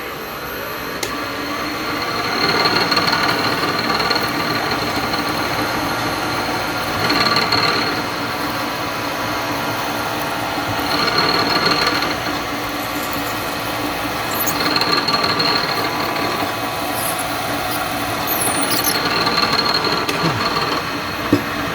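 Bridgeport vertical milling machine running with a drill bit in the spindle, drilling a tapping hole in Delrin. A louder, high squealing swell comes about every four seconds over the steady running.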